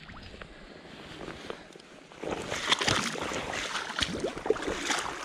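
Wading boots splashing through shallow river water, irregular sloshing steps that grow louder about two seconds in, over a soft steady rush of flowing water.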